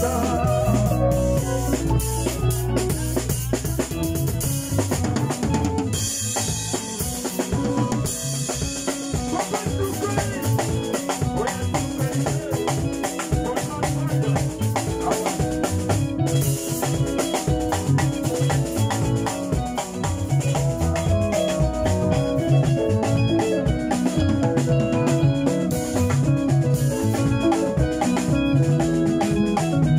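Live band playing an instrumental: a drum kit keeps a busy groove of snare, rimshots and bass drum under electric guitar and keyboard parts. A brighter cymbal wash comes in about six seconds in and again around sixteen seconds.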